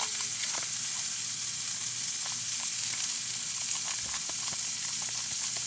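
Hamburger patties frying in a pan: steady sizzling of hot fat with many scattered small pops.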